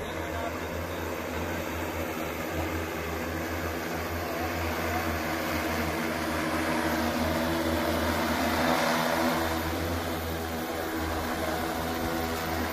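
Multirotor agricultural spray drone's propellers droning steadily in flight, a steady hum over a rush of air, growing louder about two-thirds of the way through.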